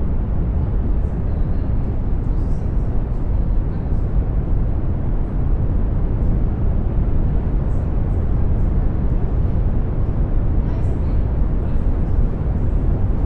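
Generated brown noise: a steady, deep rushing noise heaviest in the low end. Faint, brief high-pitched sounds are scattered through it.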